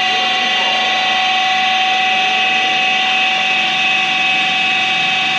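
Takisawa TC-203J CNC lathe running: a loud, steady mechanical whine with several held tones over a machine hum.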